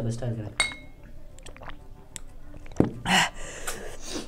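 A glass clinks once with a short ring about half a second in. Near the end come two sharp, breathy gasps from someone whose mouth is burning from extra-spicy fire noodles, just after a drink of milk.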